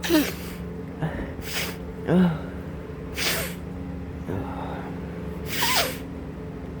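A man's gasping breaths and nasal sniffs and snorts, repeated every second or so during an allergy sneezing fit, some as short falling voiced gasps and some as short sharp hisses of air.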